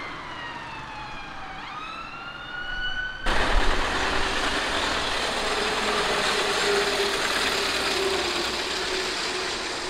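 A siren wails in the distance, its pitch falling and then rising again, until it cuts off abruptly about three seconds in. Then comes a louder, steady rush of road and engine noise with a faint hum as a veteran car drives past.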